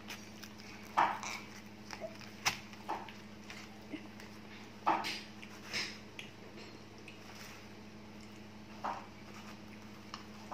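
A few scattered short clicks and scrapes of plastic forks on cardboard meal boxes and paper wrappers during eating, over a steady low hum.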